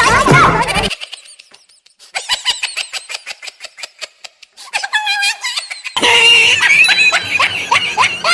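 People laughing and shrieking in reaction. There is a short lull about a second in, then quick runs of laughing pulses, growing louder with shrieks in the last couple of seconds.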